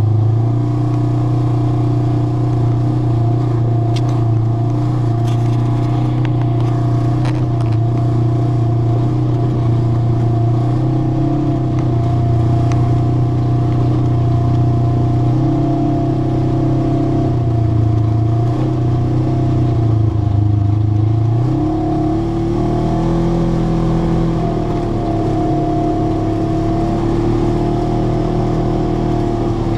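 ATV engine running steadily under way on a gravel dirt trail, its drone changing pitch about two-thirds of the way through, with a few light rattles early on.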